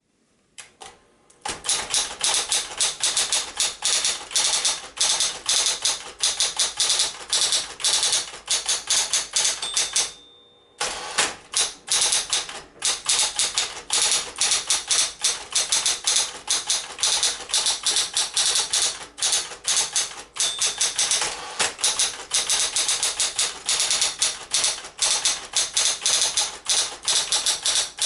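Smith-Corona Coronet Automatic 12 electric typewriter typing steadily, a fast run of keystroke clacks, with a brief pause about ten seconds in.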